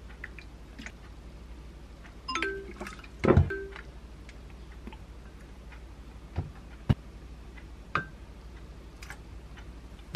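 A spoon knocking and clinking against a glass measuring cup while seasonings are spooned in and a sauce is stirred. The loudest strike, about three seconds in, leaves the glass ringing briefly, and a few lighter knocks follow. A low steady hum runs underneath.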